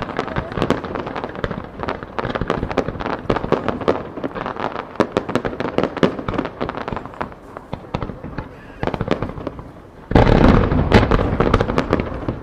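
Fireworks starmine firing in rapid succession: a dense run of shell bursts popping and crackling. About ten seconds in, a much louder, deep blast hits as a heavier volley goes off, and it stays loud.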